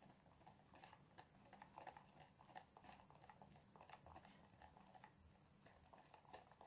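Faint, irregular soft ticks and squelches of a wire whisk stirring a thin yeast sponge batter of milk, yeast, sugar and flour in a plastic bowl, being mixed until free of lumps.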